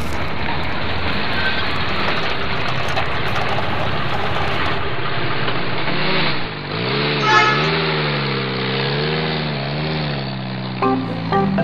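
Locomotive engine sound with a steady rushing noise. About six seconds in, a low wavering tone takes over, with one short high tone just after seven seconds.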